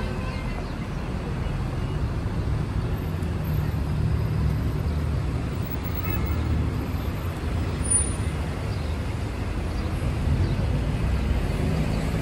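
Street traffic: a steady low rumble of cars passing on the road alongside.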